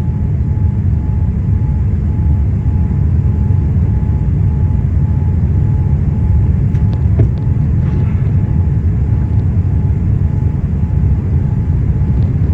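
Boeing 777 jet engines and airflow making a loud, steady low rumble, with a faint tone repeating at even intervals. A brief knock comes about seven seconds in.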